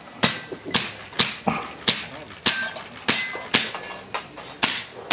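An airsoft pistol being fired in rapid succession: about nine sharp shots, roughly one every half second.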